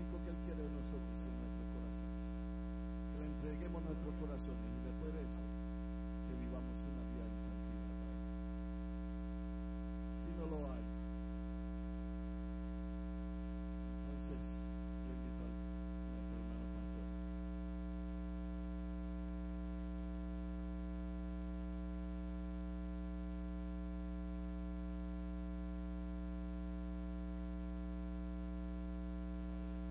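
Steady electrical mains hum, a low buzz with many overtones, with faint, indistinct voices in the first half.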